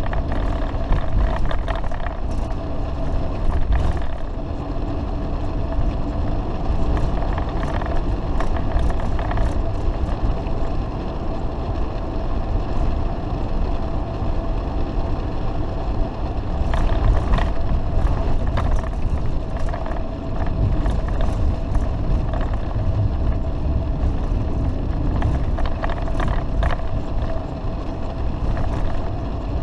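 A Fleetwood Flair Class A motorhome's diesel engine and road noise, heard from inside the cab while driving. It is a steady drone with a constant whine, broken by scattered short rattles.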